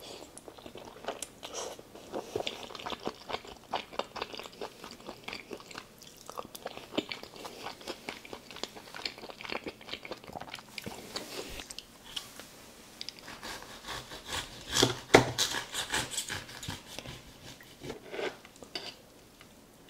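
Close-miked mouth sounds of a person chewing a mouthful of bolognese pasta: a steady run of wet clicks. The clicks are busiest and loudest about three quarters of the way through.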